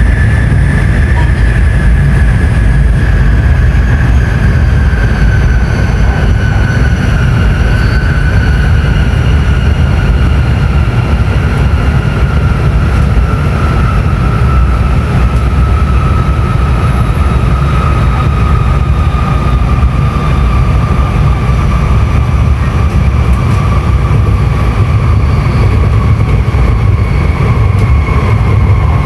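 N700S Shinkansen train running, with a loud steady rumble and a whine from the traction motors that slowly falls in pitch throughout: the train is slowing down.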